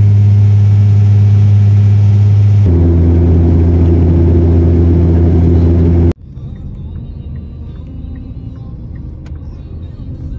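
Steady loud drone of a high-wing turboprop airliner heard inside the cabin, a strong low hum whose pitch drops slightly about two and a half seconds in. About six seconds in it cuts off abruptly to much quieter road noise inside a moving car.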